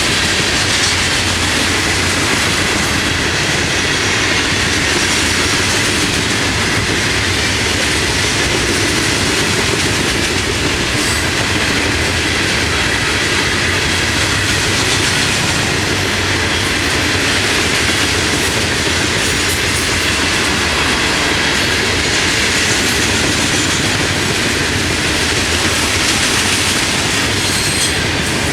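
Florida East Coast Railway freight cars rolling past at close range: a loud, steady rumble and rattle of steel wheels on the rails, with a faint high steady whine above it.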